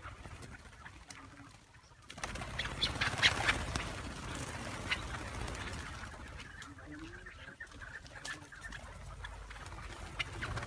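Chukar partridges flapping their wings and calling, with a louder rush of wingbeats from about two seconds in that eases into a steadier rustle.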